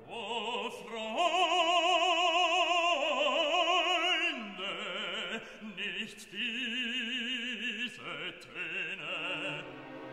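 Background music: an operatic voice singing long held notes with strong vibrato.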